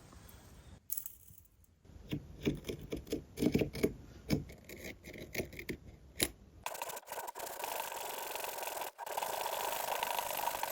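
Sanding of hardened, compressed cardboard. A run of irregular clicks and knocks comes first, then, about two-thirds of the way in, a steady continuous abrasive rasp takes over.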